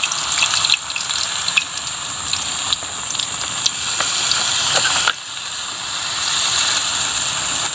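Batter sizzling and crackling in hot oil in a wok as more batter is poured in and stirred. The sizzle drops off suddenly about five seconds in, then builds back up.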